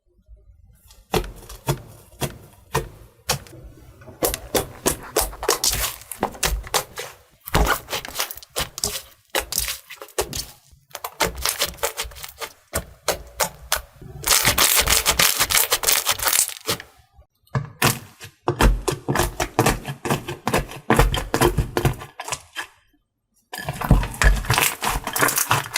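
Slime being squeezed and pressed by hand, crackling and popping in rapid sharp clicks. The clicks come in bursts with short pauses between them, with a denser, continuous crackle about halfway through.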